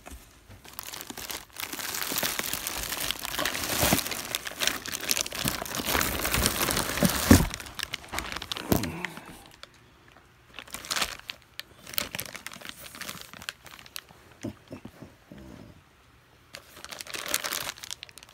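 Plastic packaging wrap crinkling and rustling as it is handled. It is continuous for the first half, loudest just before halfway, then comes in shorter scattered rustles.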